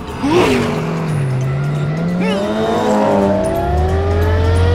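Cartoon race-car sound effects: a quick whoosh about a third of a second in, then engines revving up, their pitch rising steadily as the cars accelerate.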